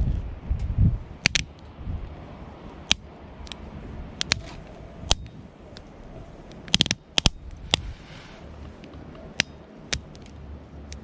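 Wood campfire crackling, with sharp irregular pops spaced about a second apart and a quick cluster of them about seven seconds in, over a low rumble in the first second.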